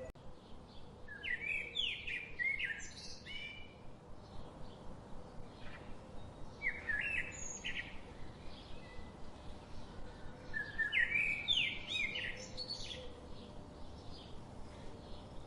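Songbirds chirping in short bursts of quick, high notes, three bursts spread over the stretch, over a faint steady background hiss.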